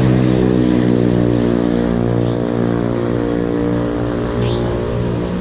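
A motor vehicle engine idling steadily close by, its hum holding one unchanging pitch, with two faint short high chirps partway through.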